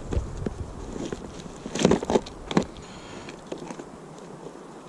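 Tackle and a plastic tackle box being handled in a gear bag: a few sharp plastic clacks and knocks, loudest about two seconds in, then only quiet rustling.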